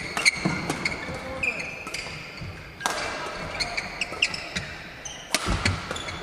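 Badminton rally: repeated sharp racket strikes on the shuttlecock mixed with brief high squeaks of players' shoes on the court mat, with one louder hit about five and a half seconds in.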